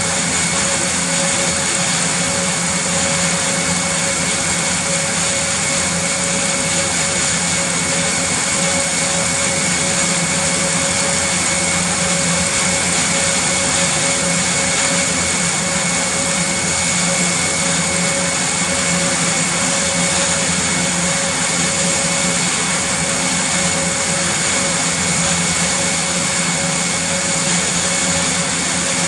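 Airbus A400M's TP400 turboprop engines and eight-bladed propellers running at ground idle. A loud, steady whine with several high held tones over the even rush of the propellers.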